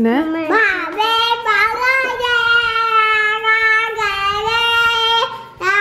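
A child singing. The voice slides up over the first second or so, then holds one long note for about three seconds before stopping.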